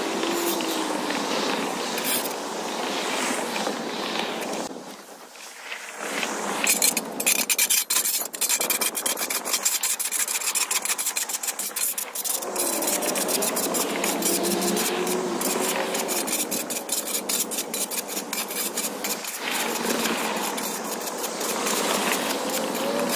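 Steel shovel blade scraping along a concrete sidewalk, in repeated rasping strokes, clearing packed dirt and dried grass out of the crack and edge. It eases off briefly about five seconds in, then comes back as fast scratchy strokes.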